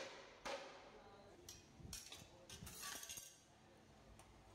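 Heavy cleaver chopping into a large fish on a wooden chopping block: a sharp knock about half a second in, then several lighter knocks and scraping of the blade over the next couple of seconds.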